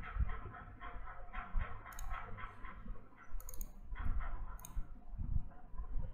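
Computer keyboard typing: keys clicking in short irregular runs, with a few sharper clicks among them.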